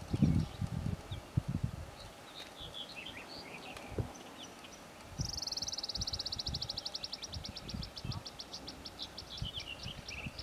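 Wild birds chirping on an open hillside, with wind gusting on the microphone in the first couple of seconds. About halfway through a fast, high trill starts and slows into a run of separate ticks.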